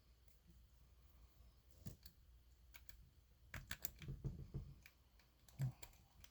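Small metallic clicks and rattles of a lock pick rake and tension wrench working the pins of a cheap padlock, with a quick flurry of clicks about halfway through and a sharper click near the end.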